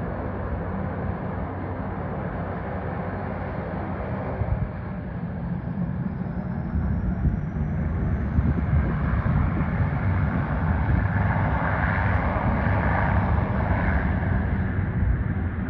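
Airliner engines heard outdoors, a steady noise that swells louder about halfway through, with a faint high whine rising in pitch.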